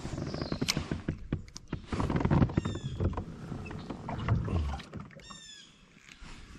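Handling noise in a sit-on-top fishing kayak: a run of sharp clicks and knocks from a spinning rod and reel with low thumps against the plastic hull, dying down about five seconds in. A bird then calls several times in quick falling notes.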